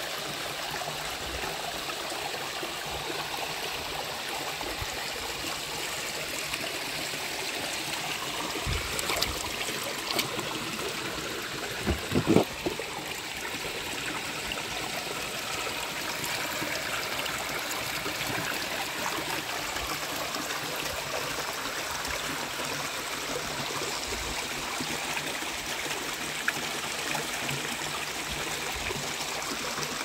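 Creek water running steadily over rocks, with a few short louder thumps or splashes around nine and twelve seconds in, the loudest near twelve.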